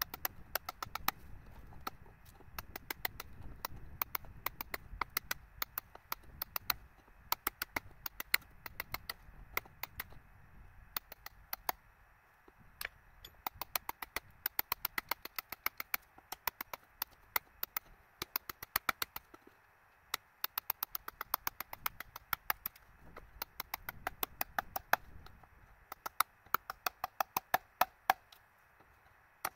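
Rapid series of sharp, light taps, often about five or six a second, in runs with short pauses.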